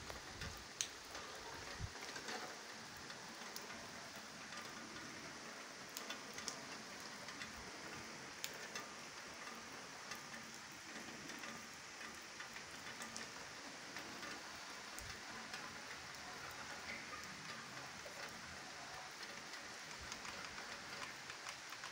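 Steady rain falling on wet paving and concrete, with scattered sharper drop ticks through it.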